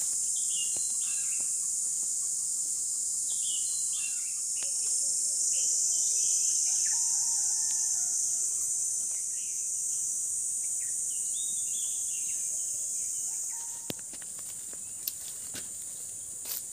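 Steady high-pitched insect drone, with scattered short bird chirps. The drone drops in level about three-quarters of the way in, and a few sharp clicks follow near the end.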